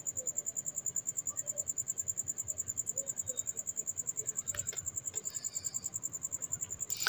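A steady, high-pitched chirping that pulses rapidly and evenly, with a couple of faint knocks about four and a half seconds in.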